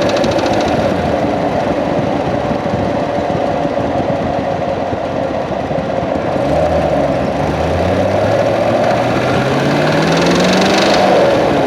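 2016 Corvette C7's 6.2-litre LT1 V8 running, heard from inside the engine bay, with a fast ticking clatter over the engine note; about six seconds in the revs start climbing steadily. The owner suspects the fuel pump or a fuel line as the cause of the noise, the belt tensioner already having been replaced.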